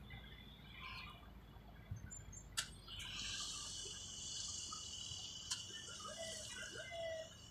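Faint outdoor ambience: a steady high-pitched insect-like buzz comes in about three seconds in, with a few short bird chirps near the end and one brief click.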